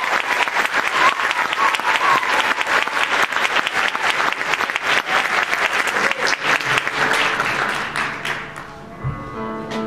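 Audience applauding, with a few whistles early on, the clapping dying away about eight seconds in. Near the end the live band starts the next number with sustained chords.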